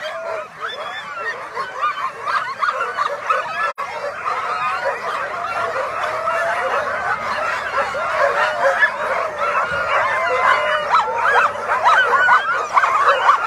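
Many Alaskan husky sled dogs barking, yelping and howling at once in a dense, continuous chorus, growing a little louder toward the end. It is the excited din of teams eager to run at a race start.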